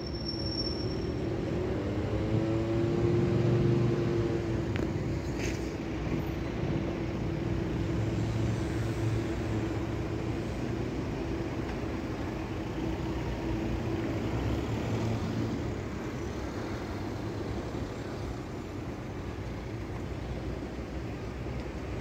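Renfe Cercanías electric commuter train pulling away on a curved track and receding. A steady whine runs over the rumble, then drops out about three-quarters of the way through, leaving a slowly fading rumble.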